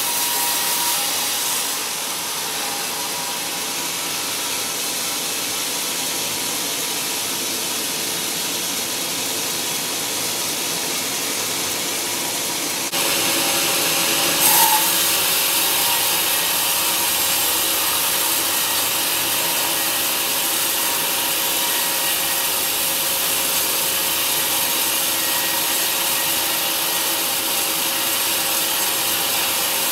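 Band sawmill blade running steadily through a large, burl-covered jackfruit log: continuous sawing noise over the machine's steady hum. The sound steps up louder and brighter about halfway through.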